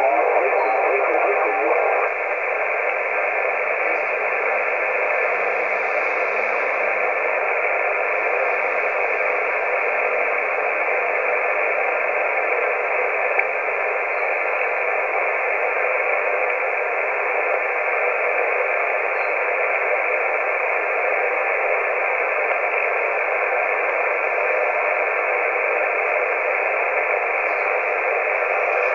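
Steady static hiss from a CB radio receiver on the 11-metre band, with no clear station coming through. The hiss is slightly louder for the first two seconds.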